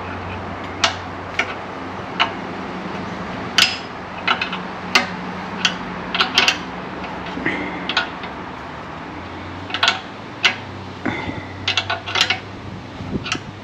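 Scattered sharp metal clicks and clinks from hand tools and radiator fittings being handled and tightened, over a steady low hum.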